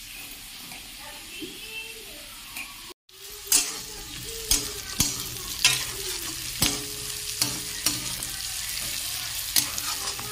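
Sliced onions frying in hot oil in an aluminium kadhai, sizzling steadily, while a metal spatula stirs and scrapes against the pan with sharp knocks about once a second. The onions are being browned lightly. The frying and stirring start about three seconds in.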